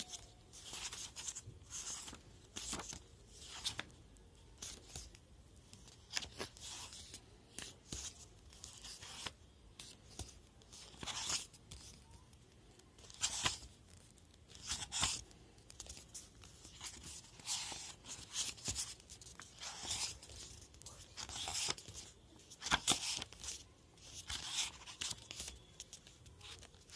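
Paper pages of a large softcover workbook being turned and handled: repeated, irregular papery swishes and rustles.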